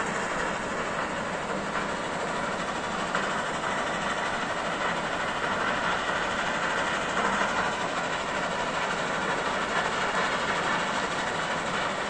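Steady rushing of a large, fast-flowing mountain river.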